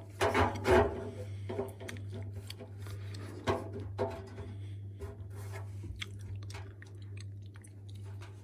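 A plastic washing machine drum paddle being handled and rubbed against the drum: a few sharp knocks and clicks in the first second, then lighter scattered clicks and scraping, over a steady low hum.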